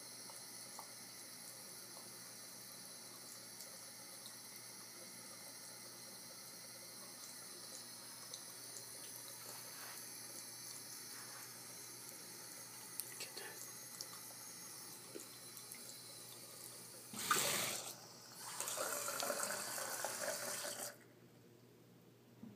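Bathroom faucet running a thin stream into a ceramic sink, a steady high hiss. Near the end the water grows much louder for a few seconds, then cuts off suddenly.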